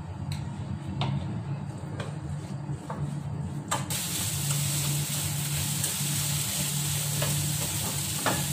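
Chopped okra frying in a nonstick pan: for the first few seconds a spoon taps lightly against the pan about once a second as chilli powder is sprinkled in. Then, about four seconds in, a steady sizzle starts as the okra is stirred and turned with a spatula, with a few more clinks of the spatula near the end.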